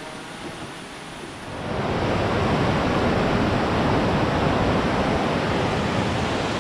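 Tumpak Sewu waterfall: falling water making a steady, loud rushing noise that swells in suddenly about a second and a half in. Before that there is a quieter hiss.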